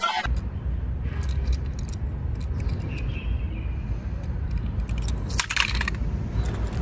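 Light clicks and clinks of die-cast toy cars being handled, the loudest cluster about five and a half seconds in, over a steady low rumble.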